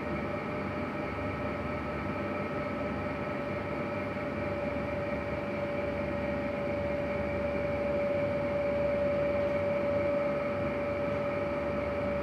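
Steady mechanical hum: an even rushing noise with a constant whine over it, growing a little louder about two thirds of the way through.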